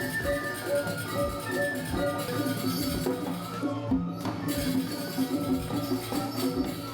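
Background music with light percussion and a steady rhythm of repeated pitched notes.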